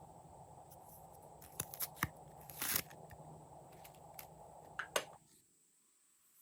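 Glossy slime being squeezed and worked by hand, giving sharp pops and crackles: a few close together about two seconds in, a longer crackle just before three seconds, and two more around five seconds, over a steady background noise. The sound then drops out almost completely for about a second.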